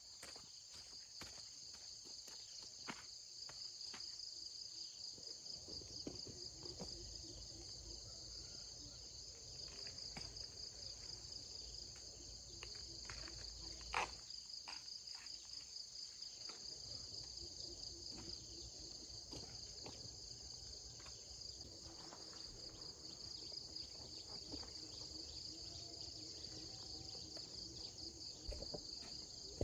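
Insects trilling steadily in a continuous high-pitched chorus, with scattered light clicks and rustles, one sharper click about fourteen seconds in.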